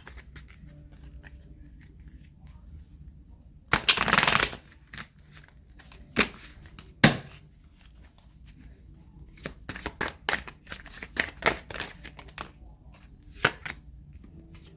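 A deck of tarot cards being shuffled and handled. About four seconds in there is a brief riffle of card edges, then single sharp card snaps, then a quick run of clicks and flicks as cards are shuffled and drawn.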